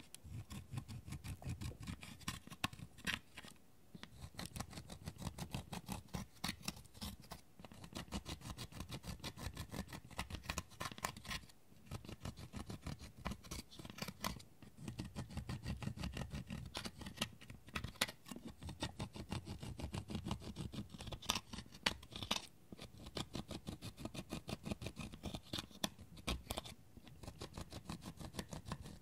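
A pointed tool scratching and crumbling pressed eyeshadow powder out of the pans of a plastic palette: quick repeated scraping strokes, broken by short pauses every few seconds.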